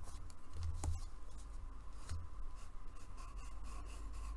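Coloured pencil scratching on paper in short sketching strokes, over a low steady hum.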